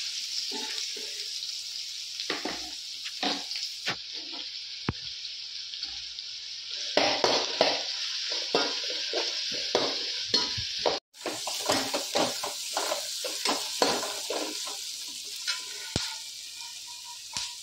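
Sliced red onions sizzling in hot oil in a steel wok, with a steel ladle scraping and clinking against the pan as they are stirred. The stirring is busiest in the middle stretch.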